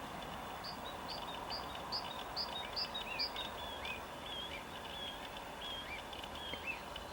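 Small birds calling: a run of about seven short, high notes repeating roughly twice a second for the first few seconds, then scattered lower chirps and whistles, over a steady background hiss.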